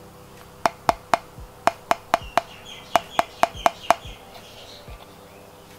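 Sharp, ringing taps on a hard part of the XD84 keyboard case: twelve knocks in two quick runs, seven and then five, about four a second, stopping a little before the end.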